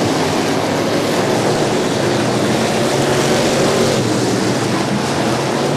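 Street stock race cars' engines running flat out around a dirt oval track, several cars at once blending into a loud, steady engine noise.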